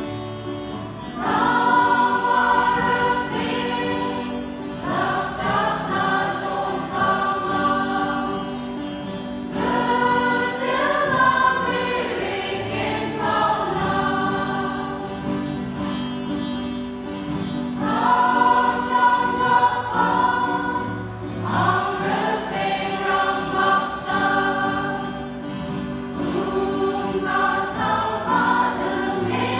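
Mixed choir singing a hymn in unison phrases of a few seconds each, with short breaks between them, over steady low accompanying notes.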